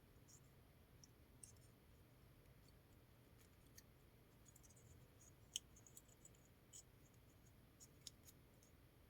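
Near silence with faint, scattered small clicks and scratches, one a little louder about five and a half seconds in: Ethernet cable wires being handled and seated by hand into the slots of a keystone jack.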